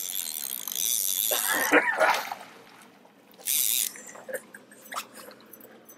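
Fishing reel cranked with a fast ratchet clicking for the first two seconds or so, then a short splash about halfway through as a fish is scooped into a landing net, followed by faint dripping.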